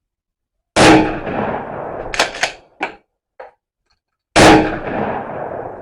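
Two shots from a Remington 870 pump-action shotgun about three and a half seconds apart, each report trailing off over more than a second. Between them the pump is racked, two sharp clacks in quick succession, chambering the next shell.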